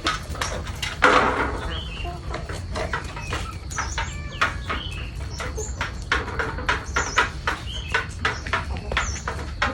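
Small birds chirping in short high notes among many sharp clicks and rustles, with one louder rustle about a second in, over a steady low rumble.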